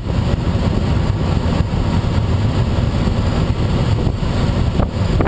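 Steady rush of airflow around a Schweizer SGS 2-33A glider in flight, buffeting the camera's microphone with a low, rumbling wind noise.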